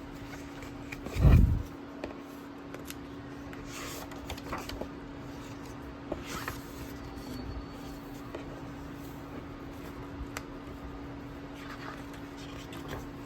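Handling of book and packaging during an unboxing: a loud, short low thump about a second in, then scattered light rustles and clicks over a steady low hum.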